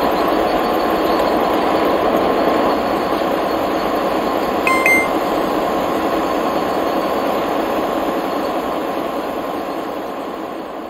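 S-gauge American Flyer model passenger train running on the layout track: a steady rolling rattle of wheels on rail with a faint steady whine, fading out near the end. A short beep sounds about five seconds in.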